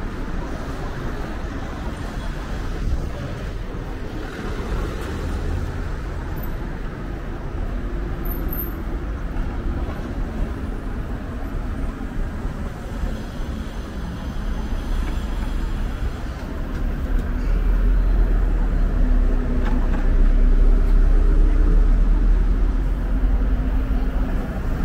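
Road traffic of cars and city buses passing close by on a busy multi-lane street, a steady rumble that grows louder and deeper in the second half.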